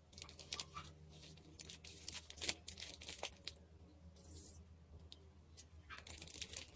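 Thin clear plastic bag crinkling in the hand as a plastic-cup pot is set inside it: scattered short crackles, the loudest about two and a half seconds in, over a faint low hum.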